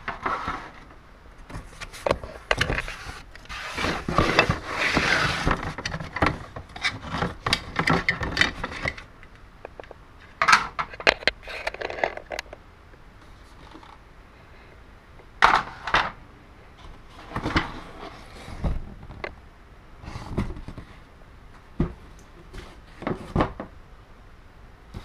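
Hard plastic toy playset pieces, base trays and flat track tiles, being handled, set down and stacked: irregular clacks, knocks and scraping. The handling is busiest for the first several seconds and then comes in scattered bursts.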